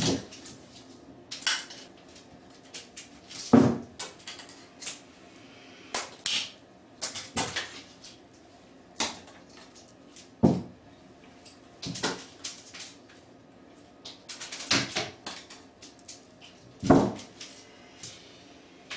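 Irregular knocks and clatters, about a dozen, from a cat scrambling about in an empty plastic bathtub and reaching up at the metal grab bar. The two heaviest thumps come a few seconds in and near the end.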